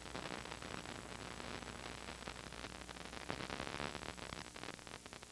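Faint tape hiss and static with a steady low hum from an old off-air VHS recording; no speech or music.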